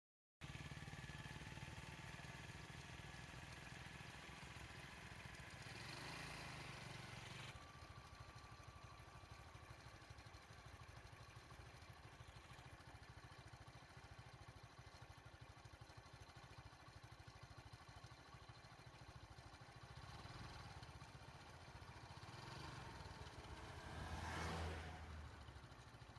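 Vehicle engine running faintly and steadily at low revs. It swells briefly about six seconds in, and again more loudly near the end as a vehicle passes close.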